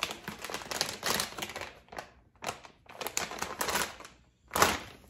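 Crinkly plastic blind-bag packaging being handled and opened, crackling in several bursts with short pauses between them.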